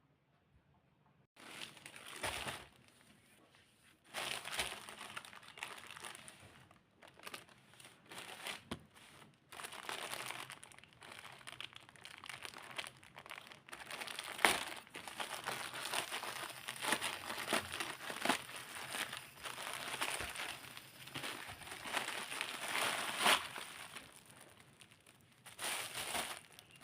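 Packaging being handled and opened, crinkling and crackling irregularly with many sharp crackles, starting about a second in.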